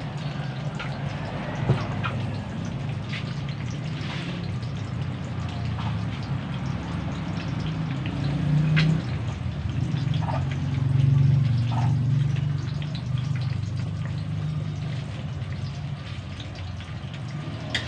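Eggs frying in oil in a pan: a steady sizzle with scattered pops and crackles, over a steady low hum.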